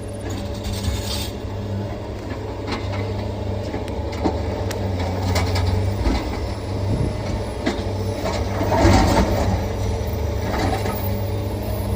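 Excavator's diesel engine running steadily, with scattered clanks and a louder burst of clatter about nine seconds in.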